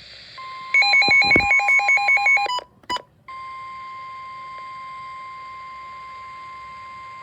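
A rapid run of short electronic beeps, about six a second for nearly two seconds, then a click, then the NOAA Weather Radio warning alarm tone, one steady high tone. The alarm tone signals that a warning message is about to be broadcast.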